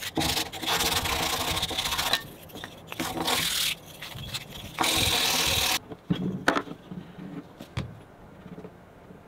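Hand-sanding the sharp bevelled edge of pine handle strips, a rasping rub in three long bursts over the first six seconds. After that it goes quiet, with a couple of short knocks as the wooden strips are set down on a plywood box.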